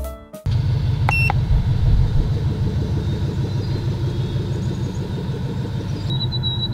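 Porsche 996 Turbo's twin-turbocharged flat-six idling steadily, with a single short electronic beep about a second in from the handheld OBD2 scan tool as its button is pressed.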